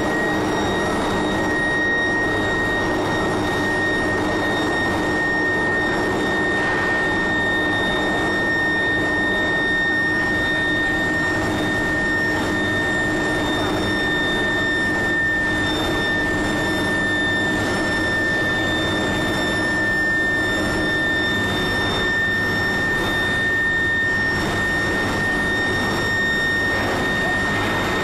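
Steady industrial running noise of an induction billet heating line and its roller conveyor, with a constant high whine over it.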